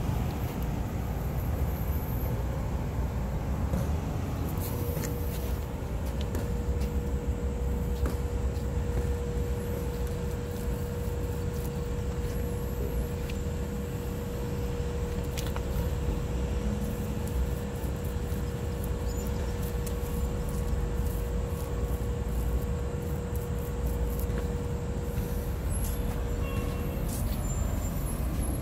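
Steady low rumble of machinery running, with a constant hum held throughout and a few faint clicks.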